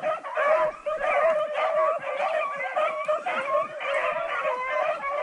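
Pack of rabbit hounds baying in full cry, several voices overlapping without a break: the dogs are running a rabbit's trail.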